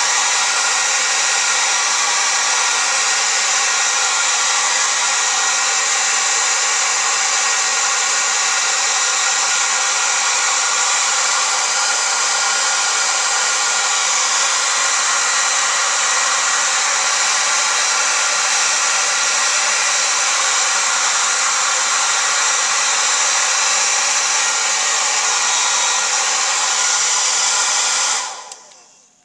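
Revlon 1600 hair dryer running steadily with a loud, even rush of air, then switched off near the end and winding down within about a second.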